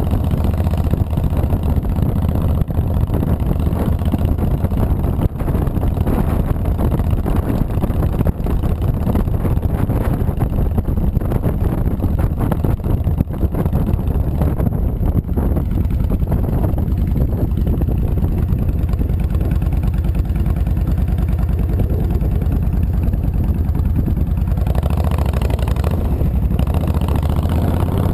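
Honda VTX 1300C V-twin engine running under way, a steady low pulsing exhaust note. Near the end a rush of wind noise on the microphone builds over the engine.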